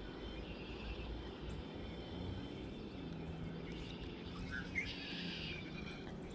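A bird gives a couple of short chirps and then a buzzy trill about five seconds in, over a steady low rumble of outdoor noise.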